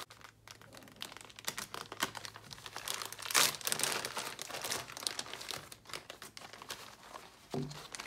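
Plastic poly mailer crinkling and crackling as it is slit open with a knife and handled, with irregular crackles throughout and a louder tearing crinkle about three and a half seconds in.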